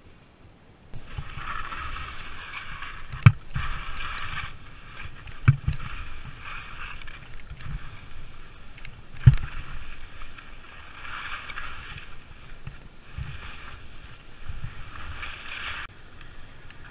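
Skis scraping and carving on steep, firm snow, the hiss swelling and fading with each turn, with wind buffeting the camera microphone. Three sharp knocks stand out in the first half.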